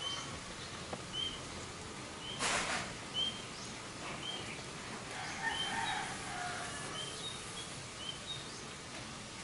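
Small birds chirping: short, high chirps repeating every half second to a second, with some lower warbling notes around the middle. A brief rushing burst of noise about two and a half seconds in.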